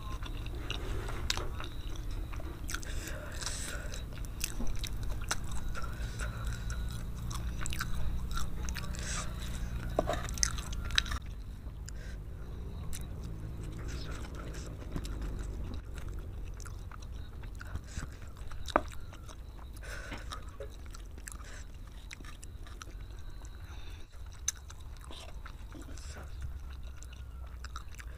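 Close-miked chewing of spicy fried flat rice noodles (kwetiau goreng), with wet mouth sounds and scattered sharp clicks. Busier and louder for the first eleven seconds or so, then quieter and sparser.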